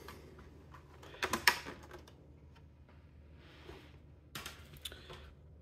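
Clicks and clacks of a laptop's bottom cover being lifted off and handled: a quick cluster of sharp clicks about a second in, a soft rustle, then a few more clicks near the end.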